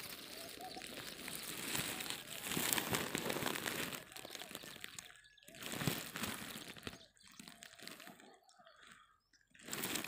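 Crackling, rustling noise with many small clicks, dropping away and turning patchy after about five seconds.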